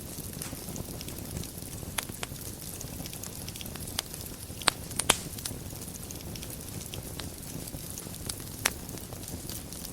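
Fire burning in a fireplace: a steady low rustle of flames broken by irregular sharp crackles and pops, the loudest a quick pair about five seconds in.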